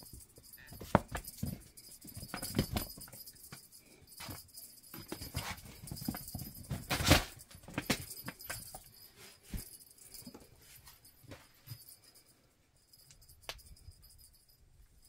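Irregular knocks, taps and clatter with light jingling, as a kitten is played with and filmed up close. The sounds come thickly in the first half and die away after about nine seconds.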